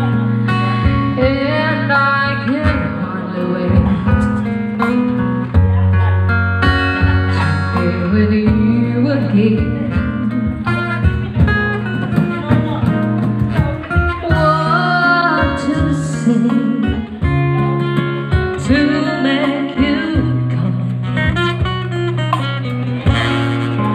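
Live acoustic band: a woman singing into a microphone over strummed acoustic guitar, with cajon percussion.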